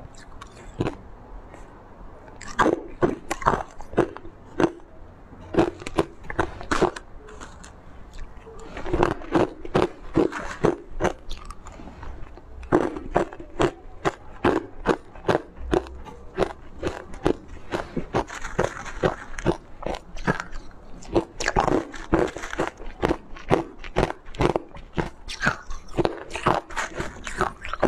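Chunks of purple-coloured ice being bitten and chewed, cracking between the teeth in runs of sharp crunches with short pauses between mouthfuls.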